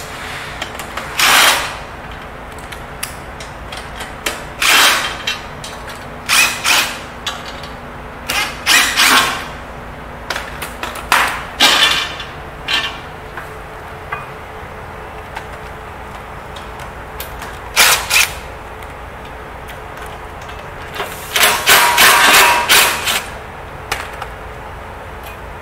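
Cordless drill-driver run in short bursts, about ten times, loosening the fasteners on a lift's caster and brake rod. The longest run, about two seconds, comes near the end.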